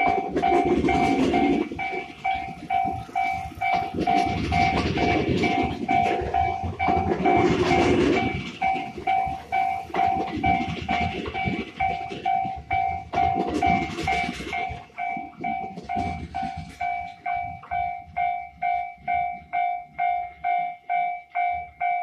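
A JR West 221 series electric train passes at close range, its wheels clattering over the rail joints in surges every few seconds as each set of wheels goes by, and dies away about two-thirds through. A level-crossing warning bell dings steadily about twice a second throughout and cuts off suddenly near the end.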